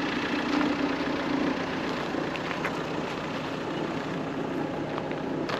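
A motor vehicle engine running steadily under a continuous outdoor hiss, its low hum strongest in the first second and a half.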